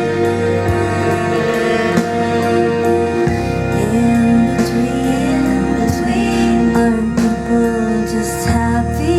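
Pop song played through Bowers & Wilkins 802 D4 loudspeakers: an instrumental passage with bass, guitar and drums. The bass moves to a new note about three seconds in and again near the end.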